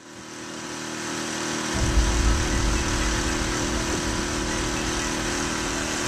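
Outboard motor of a small boat running steadily at speed, with water rushing in the wake. The sound fades in over the first second, and an uneven low rumble joins about two seconds in.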